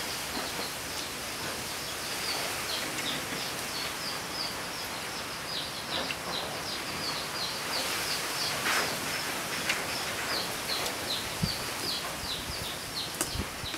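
A bird chirping over and over in short, high, falling notes, about three a second, over steady outdoor background noise. A few sharp clicks and knocks come through, the loudest near the end.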